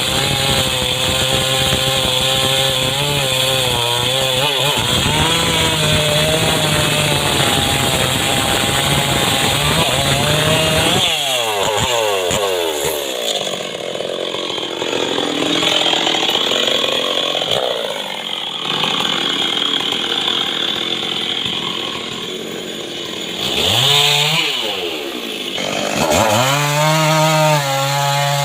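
Homemade chainsaw engine running at high revs, then dropping sharply in pitch about eleven seconds in as it comes off the throttle. It runs lower for a while, revs up and falls back briefly near the end, then climbs back to high revs.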